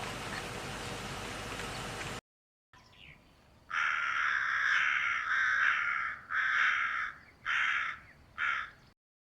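A bird giving a string of harsh, rasping calls, running together at first and then breaking into shorter separate calls. Before that there is a steady outdoor hiss, which cuts off abruptly about two seconds in.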